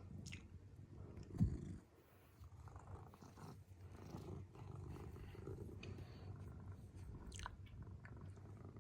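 Domestic cat purring steadily, a low continuous rumble, with one brief thump about a second and a half in.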